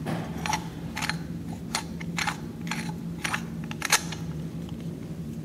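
Light metal clicks at an irregular pace, about two a second, as a small key turns the threaded sleeve into an airgun regulator body.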